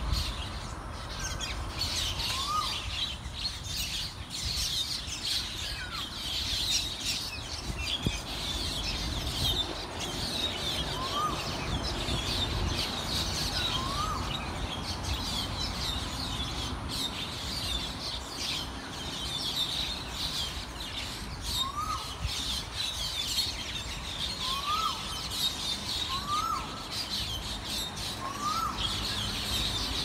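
A chorus of birds chirping without a break in the tree canopy, with a cuckoo repeating a short rising whistled call every few seconds, more often near the end.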